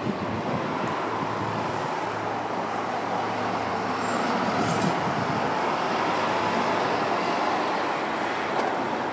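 Embraer 170 regional jet's turbofan engines heard from the ground as the airliner flies on final approach with gear down: a steady rushing jet noise, a faint low hum joining in about two seconds in.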